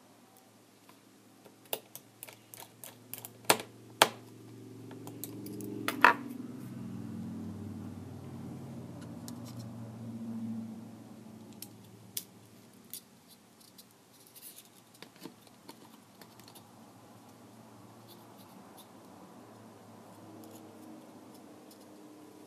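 Sharp clicks and taps from a tablet and small repair tools being handled at a workbench, bunched in the first six seconds with three loud snaps. Scattered fainter clicks follow over a low muffled rumble.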